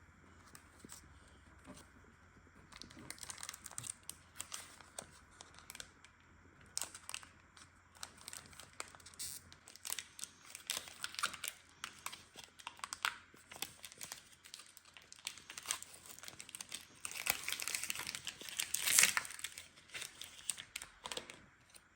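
Plastic shrink-wrap on a Pokémon Elite Trainer Box crinkling and tearing as it is pulled off by hand, in many short rustles and clicks, busiest and loudest near the end.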